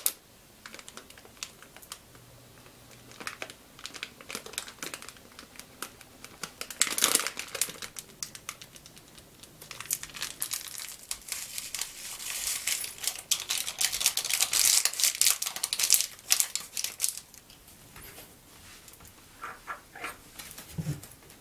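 Crinkling and tearing of the plastic wrapper of a Nongshim Chapaghetti instant-noodle packet and its sauce-powder sachet. The sachet is emptied into a glass bowl, which gives a dense spell of crackling in the middle and a few light taps near the end.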